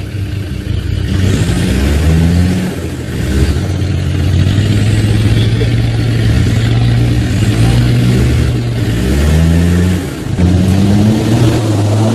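Off-road 4x4 engine under load, revved up and eased off about five times, its pitch climbing and dropping with each burst of throttle.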